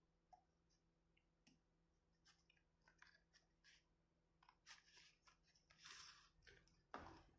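Near silence with faint, scattered clicks and rustles of the phone box's contents being handled, a slightly louder rustle near the end.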